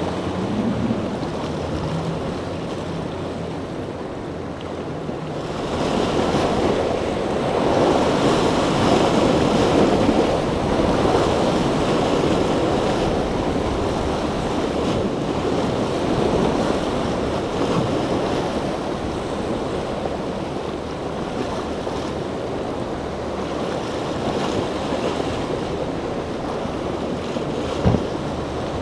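Powerboats running through rough inlet surf: a low engine hum under the rushing of breaking waves and spray, with wind buffeting the microphone. The water rush swells louder about six seconds in. A single sharp click comes near the end.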